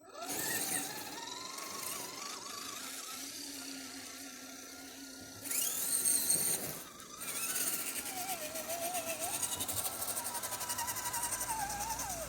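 Electric motor and gearbox of an RC rock crawler whining, the pitch rising and falling as the throttle changes. In the second half a fast, even ticking runs along with it.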